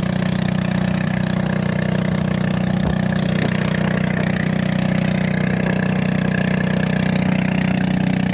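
A small boat's motor running steadily at constant speed, one unchanging low engine note throughout.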